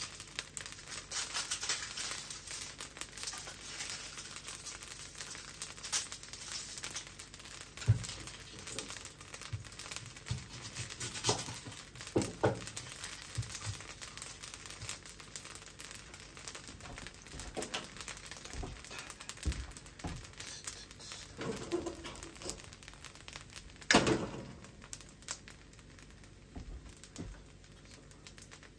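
Fried rice sizzling and crackling in a carbon-steel wok: a fine hiss with many small pops and ticks, thinning out near the end. Twice, about eight seconds in and again near the end, there is a louder knock.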